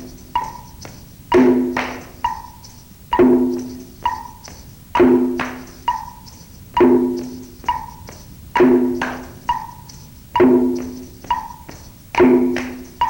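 Percussion accompaniment for a marching-and-clapping exercise, with wood block and drum keeping a steady beat. Each cycle is a lower ringing strike followed by a higher knock, and the pattern repeats about every two seconds.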